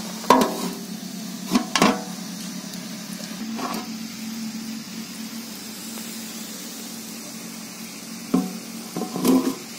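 Metal plate lid knocking and clinking against a large aluminium cooking pot of boiling sugar syrup, several times in the first two seconds and again near the end, over a low steady hum.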